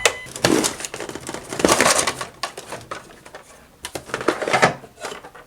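Handling noise from plastic toy trucks being moved and set down: irregular rustles and sharp plastic clicks and knocks, in several clusters.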